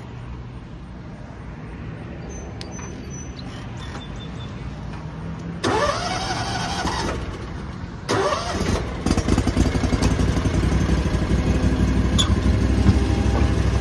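Zero-turn mower engine coming up to speed. A low steady hum, then about six seconds in the engine rises with a climbing whine for about a second and drops back. From about eight seconds in it runs loud and steady at high speed.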